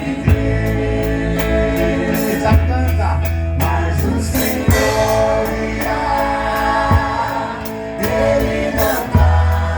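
A live band playing a Catholic gospel song with a lead singer: heavy bass, drums keeping a steady beat, and sustained keyboard chords.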